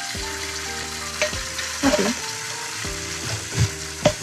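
Kitchen tap running into a stainless steel sink while a glass jar and its metal lid are handled under the stream, with several sharp knocks as they are moved. Soft background music plays underneath.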